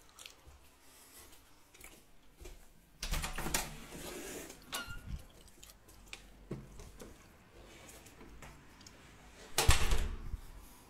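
Handling noise from a phone being carried and moved: scattered clicks and rustles, a louder rustling stretch about three seconds in, and a sharp thump a little before the end.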